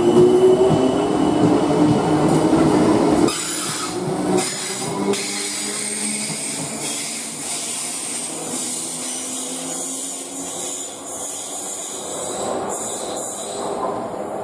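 South Western Railway Class 455/456 electric multiple unit accelerating out of the platform, its traction motors whining and rising in pitch for the first three seconds. The whine then drops off suddenly to a quieter rumble of the coaches rolling past, with clicks of wheels over rail joints.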